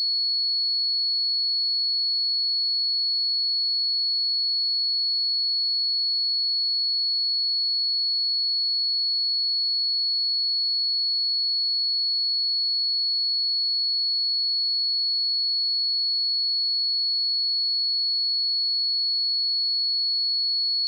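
A pure 4378 Hz sine test tone, one steady high-pitched note held at constant pitch and level.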